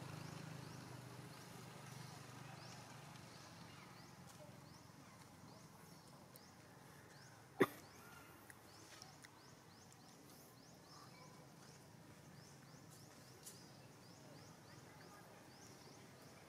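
Quiet outdoor ambience with faint high chirps repeating a couple of times a second, and one sharp click about seven and a half seconds in.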